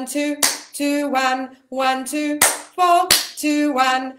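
A woman singing a counted-scale vocal warm-up on short stepped notes, with a sharp hand clap on the "three", three claps in all.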